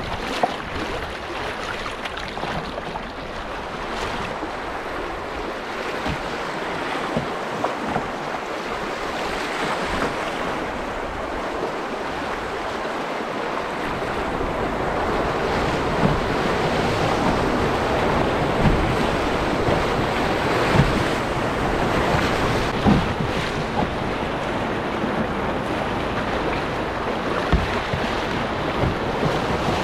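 Whitewater rapids rushing around an open canoe, a steady roar of water that grows heavier about halfway through, with wind buffeting the microphone and a few sharp knocks.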